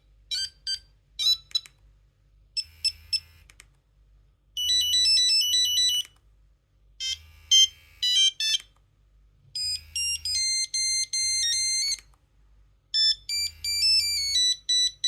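Nokia 2100 mobile phone ringtones: monophonic electronic melodies played one after another as short snippets, with brief pauses between them. The run opens with a string of quick beeps.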